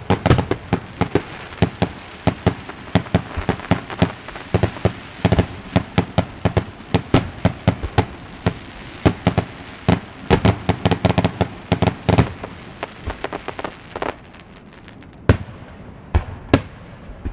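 Aerial firework shells bursting in a rapid string of sharp pops and bangs. The bursts thin out after about fourteen seconds, leaving a few single bangs near the end.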